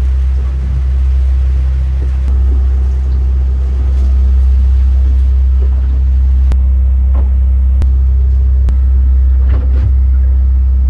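A steady, loud, deep rumble that does not let up, with a few sharp ticks in the second half.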